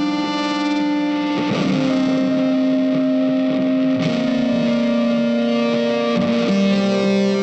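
Background music: guitar holding sustained chords that change every couple of seconds.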